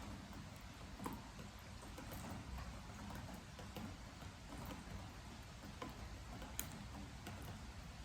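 Steady rain with water drops falling irregularly onto a wooden deck as sharp ticks, the loudest about a second in and between six and seven seconds.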